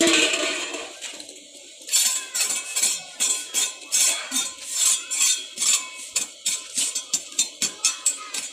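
A metal hand tool scraping and clinking against a concrete hollow-block wall, in short irregular strikes about two or three a second from about two seconds in. A loud rustle comes first, right at the start.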